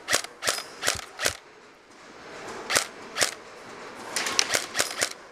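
An M4-style airsoft rifle firing single shots in quick succession, each a sharp snapping click, about half a second apart at first, then a faster cluster of shots near the end.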